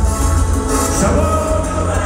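Loud dance music played over a large sonidero sound system, with heavy bass and a singing voice.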